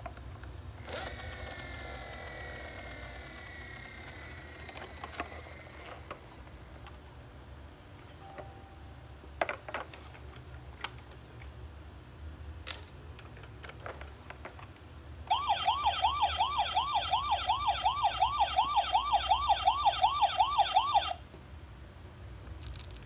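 Toy fire truck's electronic sound module playing a fast wailing siren, about three rises and falls a second, for about six seconds before cutting off suddenly. Earlier comes another electronic sound that fades over about five seconds, then a few clicks from the plastic toy being handled.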